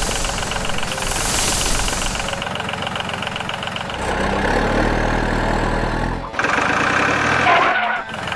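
Vehicle engine running, changing abruptly about four seconds in and again near six seconds, with a low idling-like rumble between.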